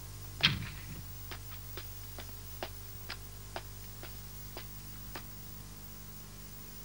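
A child's light footsteps on hard ground: short, clicking steps about two a second, slightly uneven, that stop about five seconds in. A louder knock comes about half a second in, over a low steady hum.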